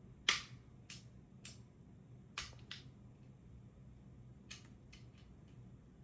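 A series of sharp, irregular mechanical clicks from an AR-15 with a newly installed forced reset trigger being handled and function-checked. The loudest click is about a third of a second in, with quieter ones following over the next few seconds.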